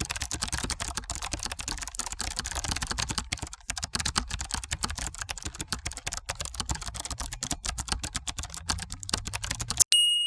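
Rapid, continuous key-clicking typing sound effect that stops abruptly near the end and gives way to a single ringing bell ding.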